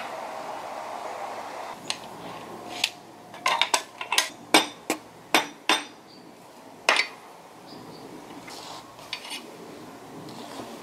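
Hammer blows on a wooden block, driving a wooden handle onto a cleaver's tang clamped in a vise: about a dozen sharp, irregular knocks with a slight clink, bunched over some five seconds and stopping about seven seconds in.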